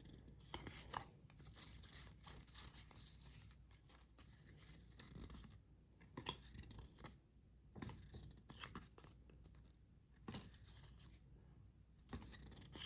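Faint, scattered rustling and light clicks of glossy trading cards being handled and slid one behind another.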